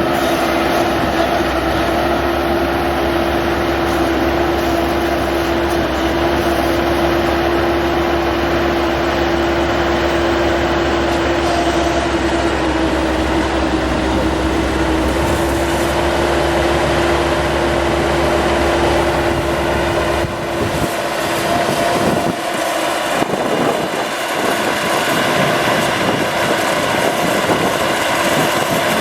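Bobcat T190 skid steer's diesel engine running steadily, with a strong steady whine over a low drone. About 21 s in, the low drone drops away and the sound turns more uneven.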